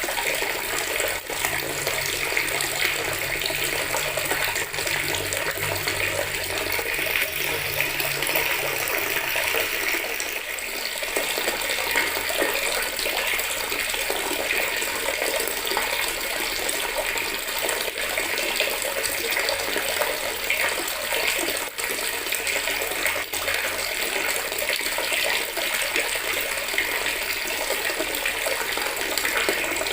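Water running steadily from a tap into a plastic bucket, a continuous splashing stream.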